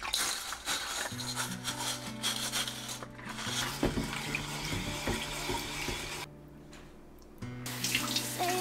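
Rubber-gloved hands scrubbing a ceramic pot in water in a sink, a rough rubbing with splashes. Near the end, after a brief lull, a tap runs as the pot is rinsed.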